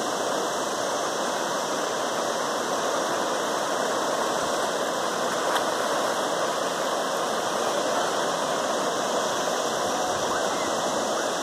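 River water rushing steadily over a rocky drop of whitewater rapids.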